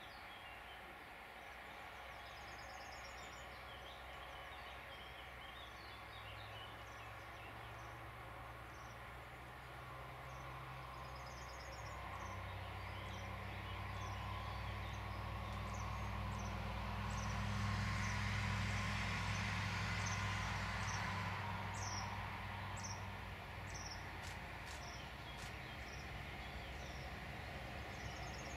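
Birds chirping and trilling over the low, growing rumble of an approaching electric locomotive-hauled passenger train, loudest a little after the middle and easing again near the end.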